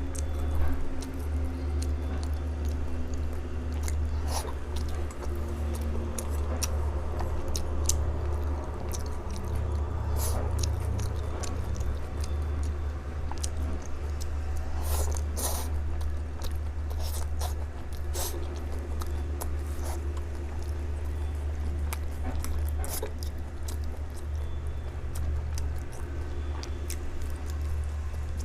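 Close-up eating sounds: a person biting and chewing kaolengmian (grilled cold noodle sheets), with many small, sharp mouth clicks scattered throughout over a steady low hum.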